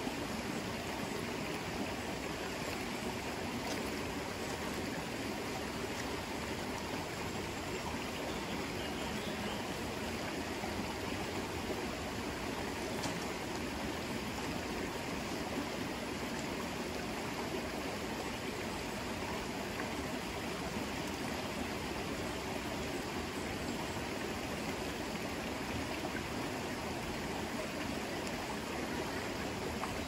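A river's water flowing in a steady, unbroken rush.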